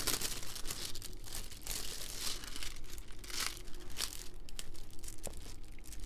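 Clear plastic cover film on a diamond painting canvas crinkling and rustling in several bursts as hands press and slide over it while drills are placed with a drill pen. There is a single light tap about five seconds in.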